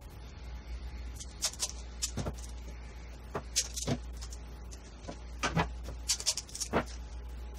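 Sped-up workbench handling: a string of short clicks and scrapes as masking tape is pulled and torn from the roll and pressed onto paper templates, over a steady low hum.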